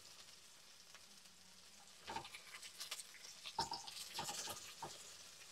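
A plastic spatula stirring and scraping sliced onion, jalapeño and garlic around a nonstick frying pan, with a few short squeaky scrapes and knocks from about two seconds in over a faint sizzle of oil.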